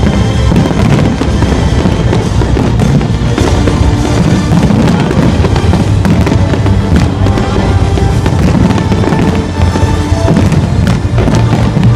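Aerial fireworks shells bursting and crackling in quick succession throughout, over loud music.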